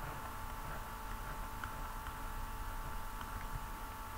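Steady electrical hum and hiss of a recording setup, with a few faint scattered ticks.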